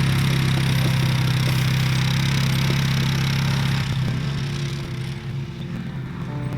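A vehicle engine running steadily. It eases off and quietens about four seconds in, then picks up again near the end.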